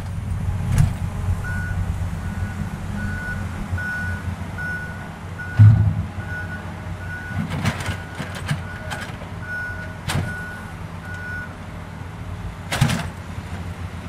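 A vehicle's reversing alarm beeping at a steady pace of a little more than one beep a second, stopping a couple of seconds before the end, over a low steady engine idle. A thump comes about halfway through, and a few sharp clicks of a spoon against the bowl of soil being stirred.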